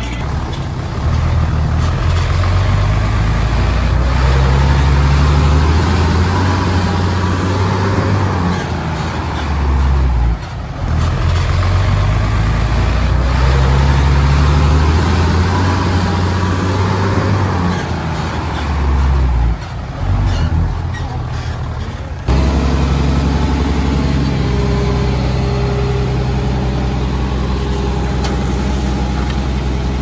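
Heavy diesel engine of earth-moving machinery, running loud and low and rising and falling with load. It dips briefly about ten seconds in and again near twenty seconds, then jumps back sharply a little after twenty-two seconds.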